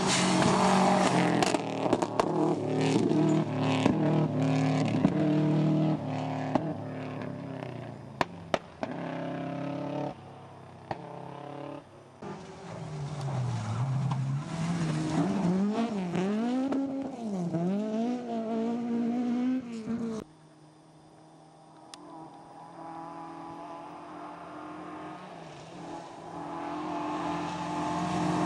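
Rally cars driven hard on a gravel stage: engines revving high and stepping up and down through the gears, with stones clicking off the bodywork. In the middle the engine note swings rapidly up and down as the driver works the throttle. The sound cuts off suddenly partway through, and near the end another car approaches, getting louder.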